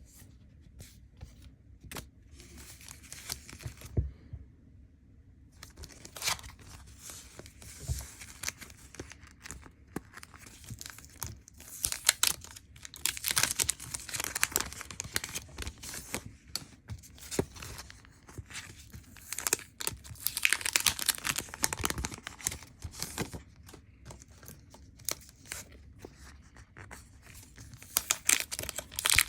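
Merchandise packaging being torn open and crinkled by hand, in irregular bursts of tearing and crinkling with small taps and clicks, pausing briefly about four seconds in.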